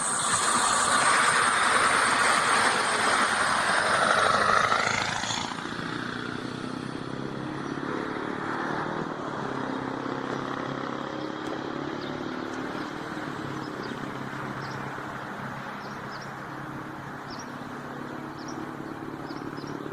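Small gasoline engine running, loud with a rushing noise for about the first five seconds, then settling into a steady hum.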